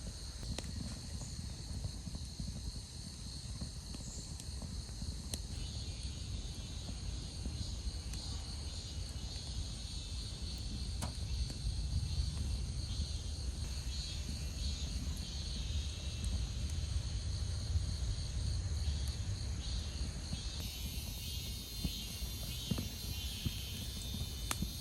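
Insects chirring steadily over a continuous low rumble, with a few faint clicks.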